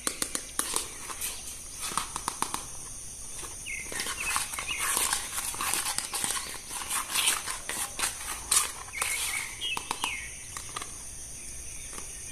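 Plastic toy packaging being handled: irregular crinkles and clicks, busiest in the middle, over a steady high insect drone, with a few bird chirps.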